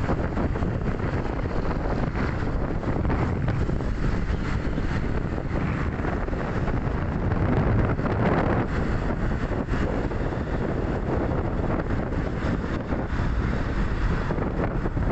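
Wind buffeting the microphone while moving along a road in traffic, a steady low rushing rumble mixed with the noise of nearby cars and motor scooters.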